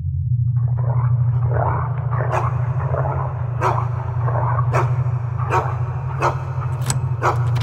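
Dogs barking and snarling over a steady low drone. A run of sharp knocks comes in from about two seconds in and recurs every second or so.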